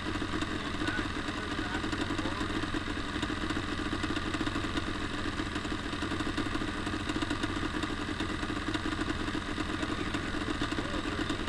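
Yamaha Banshee two-stroke twin engine of a racing lawnmower idling steadily.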